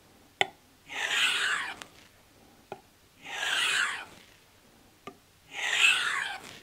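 A santoku knife blade drawn along a leather strop loaded with 0.25-micron polycrystalline diamond emulsion: three slow rubbing strokes about two seconds apart, each preceded by a sharp click. This is the final deburring and polishing stage of the edge.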